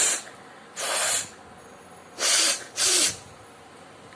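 A person sneezing repeatedly: four short, hissing blasts of breath through the nose and mouth, the last two close together. Eyes and nose are streaming.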